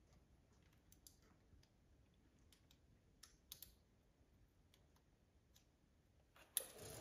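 Near silence with faint, scattered clicks and light taps of hands handling metal engine parts around the timing-belt pulleys. A single sharper click comes near the end.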